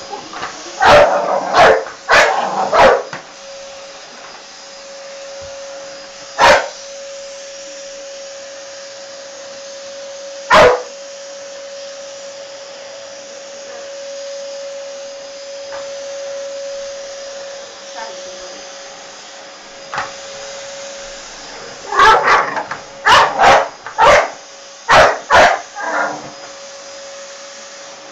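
Vacuum cleaner running with a steady hum and whine while an American Staffordshire Terrier barks at it in short sharp bursts: several barks in the first three seconds, single barks around six and ten seconds in, and a rapid run of barks near the end.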